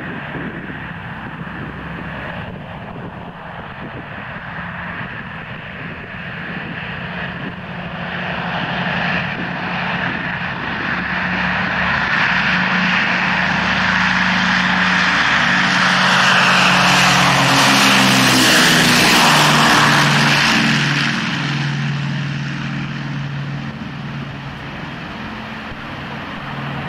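Douglas DC-6's four Pratt & Whitney R-2800 radial piston engines and propellers at takeoff power during the takeoff roll and liftoff. The sound grows louder as the airliner passes, peaks about two-thirds of the way in, then drops in pitch and fades as it climbs away.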